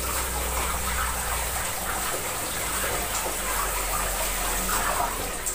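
Tap water running steadily into a kitchen sink while pieces of beef skin are rinsed under it by hand.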